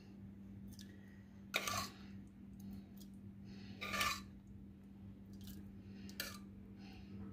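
Steel ladle dipping and scraping in a pot of rajma curry and pouring it into a ceramic serving bowl, with a few short clinks and wet splashes, the loudest about a second and a half in and again at about four seconds. A steady low hum runs underneath.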